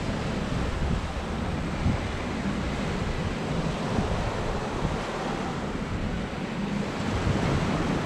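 Sea waves washing onto the shore in a steady surf, with wind buffeting the microphone in uneven low rumbles.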